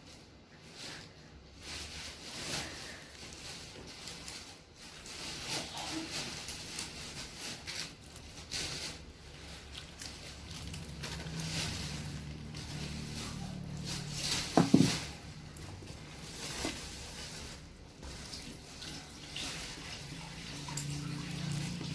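Handling noises of a UTP network cable being worked by hand: irregular rustling and small clicks of the wires and plastic, with one sharp click about fifteen seconds in.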